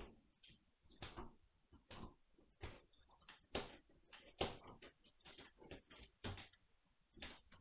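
Magyar Vizsla puppies moving about in their pen: faint, irregular soft knocks and rustles, roughly one or two a second.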